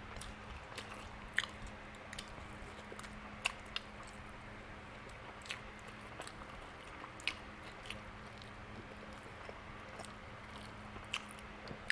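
Close-up mouth sounds of a man chewing and gnawing barbecued pork rib meat off the bone, with scattered sharp wet clicks and smacks.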